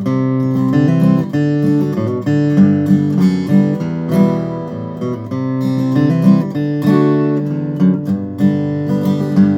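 A 2013 Martin OM-21 steel-string acoustic guitar being played, chords and picked notes ringing with several new notes each second.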